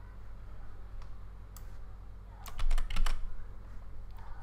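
Computer keyboard clicking: a single faint key click, then a quick burst of several key presses about two and a half seconds in, lasting under a second.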